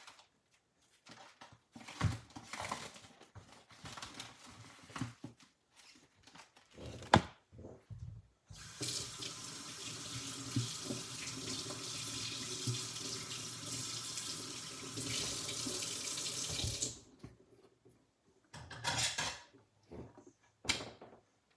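Kitchen tap running into a stainless steel sink for about eight seconds while a raw steak is rinsed under it. Before the water comes on there are scattered rustling and handling noises, and after it stops a few short bursts of handling.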